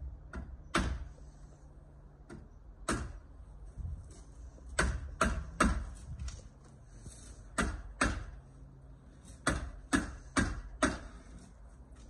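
Hammer driving felt nails into the timber edge of a shed roof to fix the roofing felt. Sharp strikes come in short runs of two or three, about a dozen in all.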